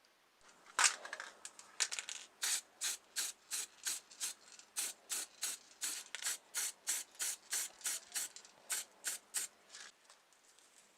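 Rapid, even rubbing strokes by hand on a small model car body, about three a second, with one louder stroke just before they settle into the rhythm.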